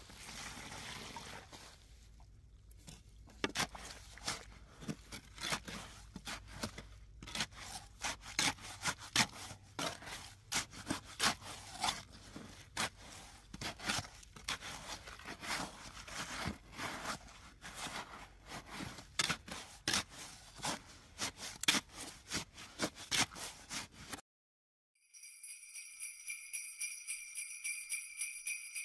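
Irregular sharp clicks and knocks for about twenty seconds. Then a short cut to silence, and music with ringing jingle bells begins near the end.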